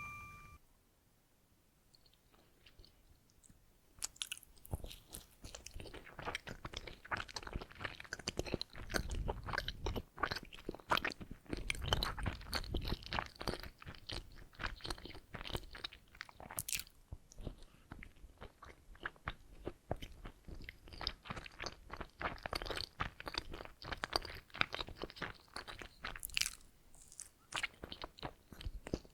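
Close-miked chewing and biting of donuts: dense, irregular wet clicks and crunches that start about four seconds in after a near-silent pause and run on with little break.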